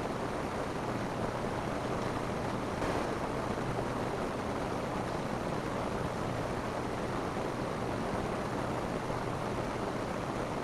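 Steady rain falling on a roof, an even hiss without letup.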